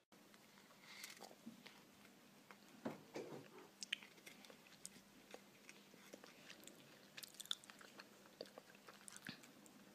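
A cat biting and chewing a crunchy treat held out by hand: faint, irregular crunching clicks.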